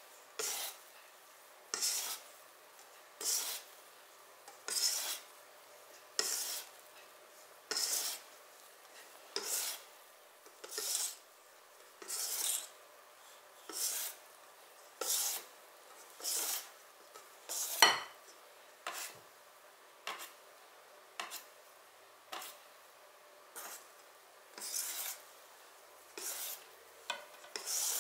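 Wire balloon whisk folding meringue into cake batter in a stainless steel bowl: a swishing scrape of the wires against the bowl about once every second and a half, with one sharper clink of metal on the bowl a little past halfway.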